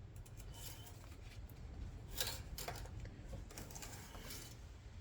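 Faint scrapes and clicks of an engine oil dipstick being slid down its tube and drawn out again, over a low steady hum.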